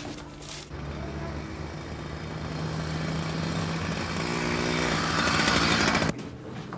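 A motor vehicle's engine running and getting louder, then cutting off suddenly about six seconds in.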